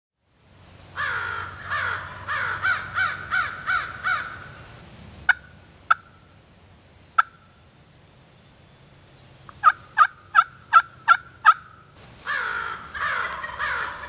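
Wild turkey gobbler gobbling, a long rattling call. Three sharp single clucks and a run of six yelps follow, then a second gobble near the end.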